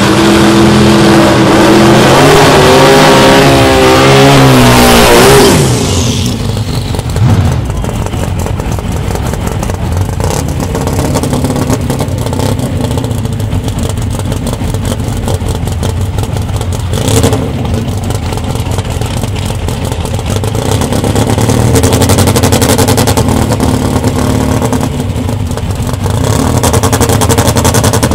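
Drag-racing VW Beetle's engine revved high for about five seconds with a wavering pitch, then cut back to a lower, lumpy running as the car creeps forward. Two sharp pops come through, and the revs rise again twice in the second half.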